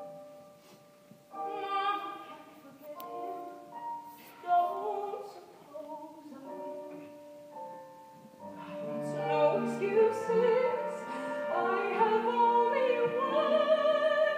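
A woman singing a slow Broadway ballad in full concert voice over orchestral accompaniment, with held notes and vibrato. The music swells louder in the second half.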